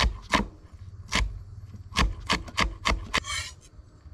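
Chef's knife chopping a red chili on a wooden chopping board: about eight irregular knocks of the blade striking the board, then a brief scrape of the knife across the board as the chopped chili is pushed off.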